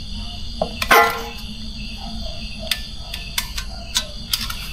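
Background music: a loud struck note about a second in, then a few faint short notes, over a steady high-pitched whine.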